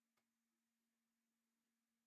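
Near silence: a faint steady hum, with one faint click shortly after the start.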